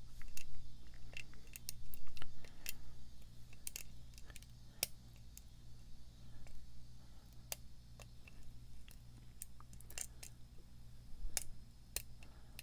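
Light, irregular metallic clicks and scrapes of a lock pick and tension wrench working the pins inside a pin-tumbler lock, over a low steady hum.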